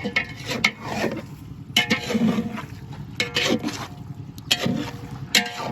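A metal ladle stirring chicken and masala in a large cooking pot, giving repeated scraping strokes against the pot, irregularly about once or twice a second.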